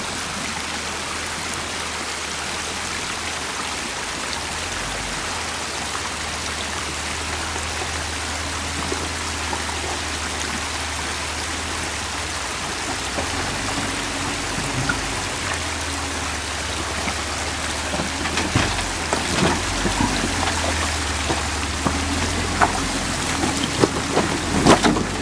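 Creek water rushing over rocks in a steady hiss, with a Jeep Wrangler's engine running low underneath. From about 18 seconds in, scattered knocks and clunks come through as its tyres climb over the creek-bed rocks close by.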